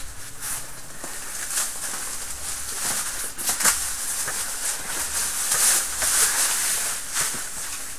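Packaging rustling and crinkling as items are pulled out of a parcel, with scattered short crackles and handling knocks throughout.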